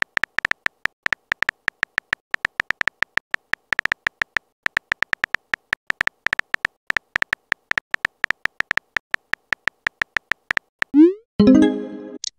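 Simulated phone-keyboard typing clicks from a texting-story app: short, high ticks several times a second as a message is typed. About eleven seconds in, a quick rising whoosh and a short pitched chime as the message is sent.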